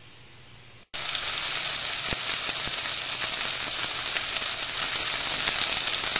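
Olive oil sizzling in a nonstick pot with garlic and ground spices (paprika, ginger, curry) frying in it, a steady hiss that starts abruptly about a second in with a few small crackles.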